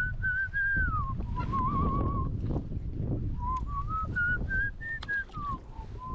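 A person whistling a slow, wandering tune, breaking off for about a second partway through, over a low rumble.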